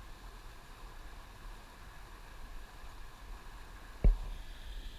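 Fast river water running over a riffle, a steady hiss, with one sharp knock about four seconds in.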